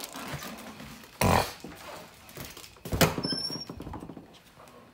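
Two heavy thumps nearly two seconds apart, from footsteps and handling as someone walks through the house carrying the camera. A brief high squeak follows just after the second thump.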